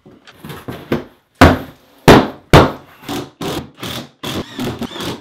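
Cordless impact driver driving screws with washers through Wedi foam board into the wall studs, in a series of short bursts. The three loudest come between about one and a half and two and a half seconds in, followed by quicker, shorter bursts.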